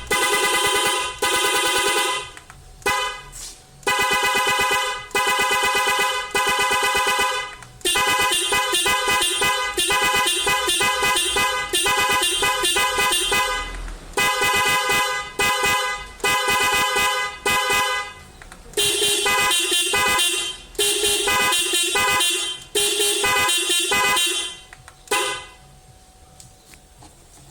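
Car horn played through a five-rhythm 'disco horn' controller module, honking in rhythmic patterns. It switches between separate blasts, fast stuttering runs and longer held honks, then stops a couple of seconds before the end.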